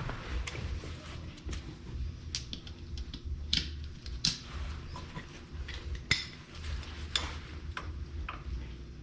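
Metal tools and parts clinking and clanking during hand work on a car's brake assembly. Several sharp metallic clicks come about a second apart over a low steady hum.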